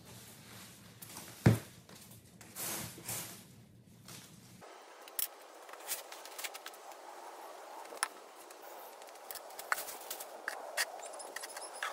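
A single sharp thump about one and a half seconds in. Then a steady outdoor hiss with scattered light clicks and knocks as a plastic plant pot, wrapped in a plastic bag, is handled and tipped for repotting.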